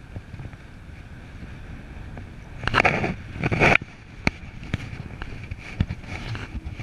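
Airflow rushing over a camera microphone in flight under a paraglider, with a loud gust of buffeting about three seconds in and a few short knocks.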